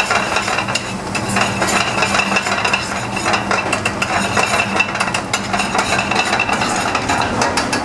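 A metal spoon scraping and clattering quickly against a steel frying pan, stirring chopped onion, celery and garlic that sizzle in butter over a gas flame.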